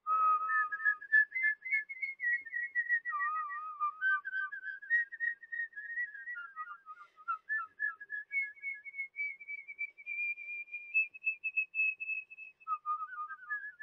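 A tune whistled by a person: a single melody line of sliding, warbling notes that climbs to a longer, higher passage in the second half.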